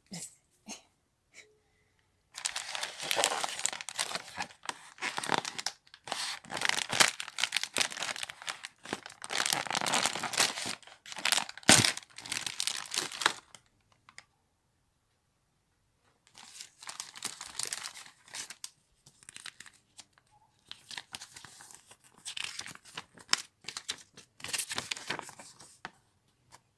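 Metallic foil wrapper of a toy doll package being torn open and crinkled by hand, in two long stretches of crackling with a short pause between them and one sharp snap about halfway through.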